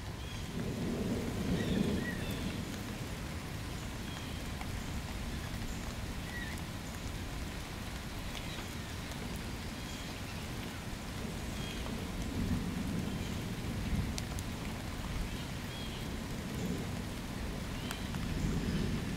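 Distant thunder rumbling low in three rolling swells, about a second in, around twelve seconds in and near the end, over a steady hiss of outdoor background noise.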